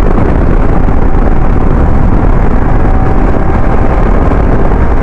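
Loud, steady wind rumble on the microphone over the motorcycle's engine and road noise while riding at speed.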